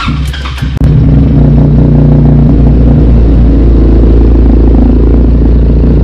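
Benelli 302R's parallel-twin engine starting up under a second in, then idling loudly and steadily.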